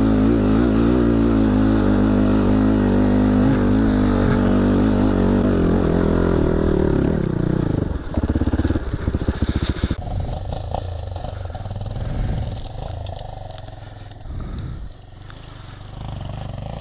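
Enduro motorcycle engine running with wavering revs for about eight seconds, then dropping to an evenly pulsing idle. After that it is quieter, with scattered knocks and clatter.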